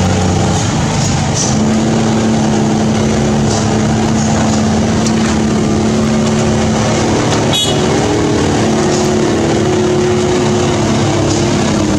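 Diesel engines of loaded Hino 500 trucks running as the trucks pass close by, a steady drone of engine tones over tyre and road noise. A brief sharp sound cuts through once, a little past halfway.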